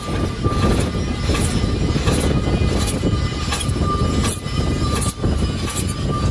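Large metal lathe turning a steel tube, the tool bit cutting into the spinning workpiece. It makes a dense rumble with a rhythmic clatter about twice a second and a thin steady whine.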